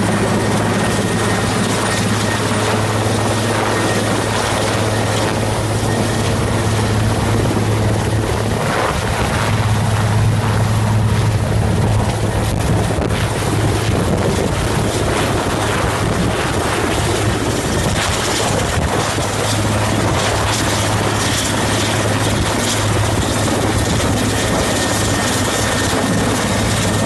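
Large military helicopter close by, its rotor and turbine engines running loudly and steadily with a constant low drone as it hovers low, sets down on the grass and keeps its main rotor turning.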